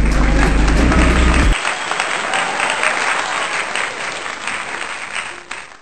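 Audience applauding in a dense, steady patter of clapping, heard through a thin, old archival recording. A low rumble underneath stops about a second and a half in, and the applause fades out near the end.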